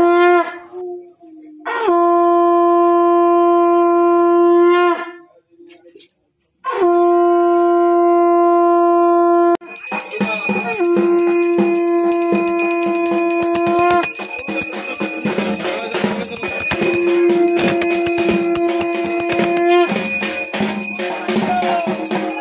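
Conch shell (shankha) blown in long, steady blasts for the puja: three blasts with short breaks between them. From about ten seconds in a bell rings rapidly while the conch keeps sounding in further long blasts.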